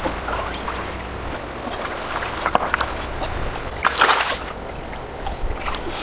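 Hands sloshing and splashing in shallow, muddy stream water among rocks, in a few short splashes, the biggest about four seconds in.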